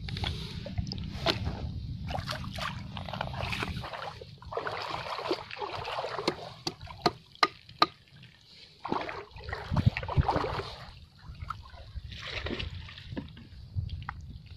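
Shallow seawater sloshing and splashing around a reef rock, with sharp knocks of a metal tool striking and prying at the coral rock, the loudest a few in quick succession around the middle. A low wind rumble on the microphone stops after about four seconds.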